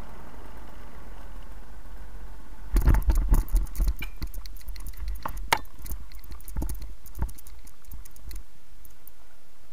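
Paraglider landing on grass: a burst of thumps about three seconds in as the pilot's feet touch down and run out, then scattered clicks and rustles of the harness and lines as the wing comes down.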